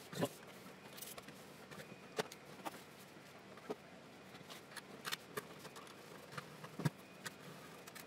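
Faint, scattered clicks and light taps of parts being handled and fitted into a Lenovo M92p Tiny mini PC, as the black heatsink cover is set back down over the CPU. The sharpest click comes about seven seconds in.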